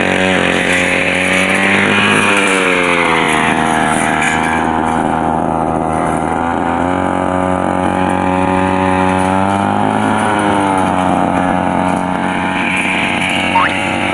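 Kawasaki TG25 two-stroke brush cutter engine running at high throttle while its blade cuts weeds. The engine pitch dips and climbs back several times, around two, four and ten seconds in.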